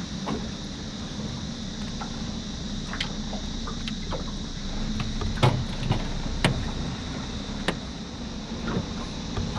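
Sharp knocks and taps in a small aluminium dinghy as a whiting is landed, the loudest about halfway through. They sit over a steady low drone of wind and water.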